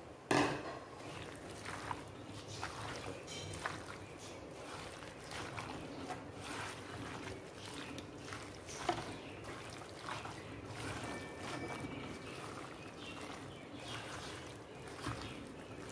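A hand squishing and mixing masala-coated raw chicken, onions and curry leaves in a black cooking pot: irregular soft wet squelches and rustles, with a sharp knock about half a second in.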